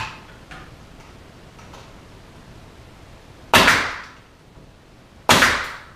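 Pneumatic brad nailer firing twice, about a second and a half apart, each a sharp shot with a short hissing tail, driving brads into the top of a stair spindle.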